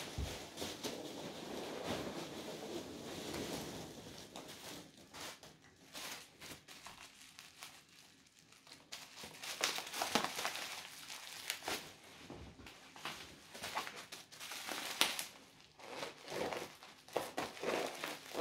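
Parcel packing material being pulled out and handled, crumpling and crinkling. There is a steady rustle for the first few seconds, then irregular crinkles and crackles.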